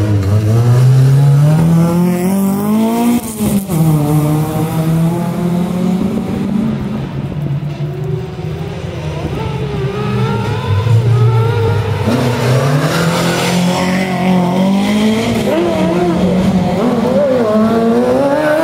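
Rally car engines at full throttle through a hairpin: an engine climbs in pitch for about three seconds, drops at a gear change and pulls away, then another engine rises as the next car arrives. Near the end a rally buggy's engine revs up and down hard as it takes the bend.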